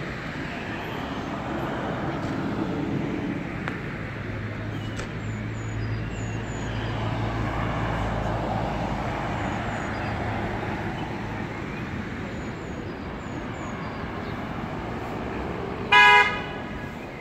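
Street traffic: cars and a van passing, with an engine hum that swells and fades through the middle. About a second before the end comes one short, loud vehicle horn toot. Faint bird chirps sound over the traffic.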